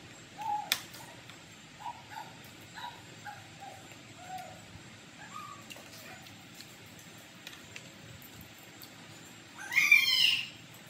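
Short animal cries repeat every half second or so, followed by a louder, longer call that rises and falls near the end. One sharp click of cutlery on the plate comes near the start.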